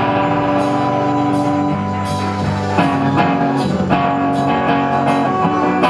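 Live rock band playing an instrumental passage: electric guitars ringing out sustained chords that change every second or so, over drums.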